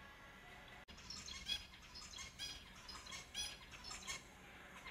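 Finches calling in short, quick chirps, several a second. The calls are soft at first, then louder and busier from about a second in, after a brief dropout.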